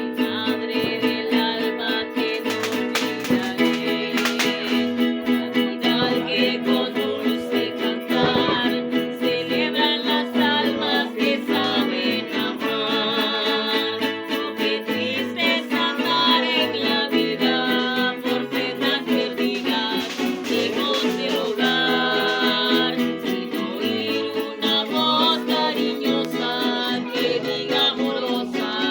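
A string band playing a melody live, with quick plucked notes over a moving bass line.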